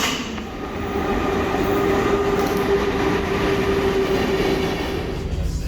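A vehicle running: a steady rumble with a held whine that starts about a second in and fades near the end, after a sharp click at the start.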